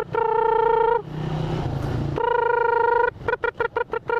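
Motorcycle horn, one steady single-pitched tone, sounded in two long blasts of about a second each. It is followed by a rapid machine-gun string of about seven short beeps and one more blast near the end. The motorcycle engine runs low in the gap between the long blasts.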